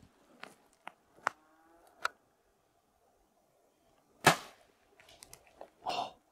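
A bow is shot: one sharp, loud crack of the string's release about four seconds in, then a second shorter thump about two seconds later, with a few faint clicks before the shot.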